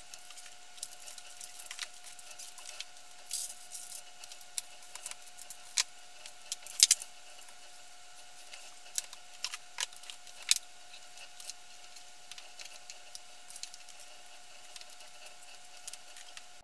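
Scattered clicks and knocks of books and objects being handled and set down on a dresser, over a steady hum. The loudest knocks come a little before 7 seconds in and again near 10 and a half seconds.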